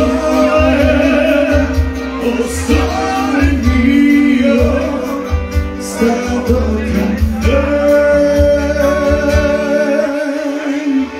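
Live band music with a voice singing long, wavering held notes over a pulsing bass beat; the bass drops out near the end.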